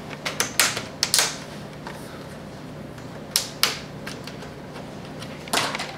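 Plastic screen bezel of an HP Envy dv6 laptop being pried off, its retaining clips snapping loose in sharp clicks: a quick cluster at first, two more about halfway through and one near the end.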